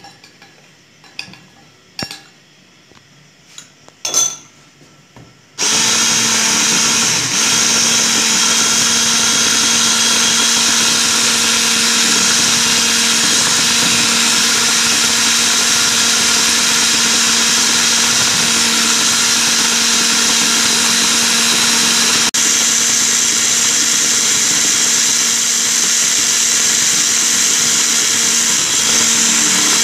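A few light clinks of a spoon against the metal beaters and glass bowl, then about five and a half seconds in an electric hand mixer switches on and runs steadily, whipping coffee, sugar and water in a glass bowl, with a momentary dip about two-thirds through.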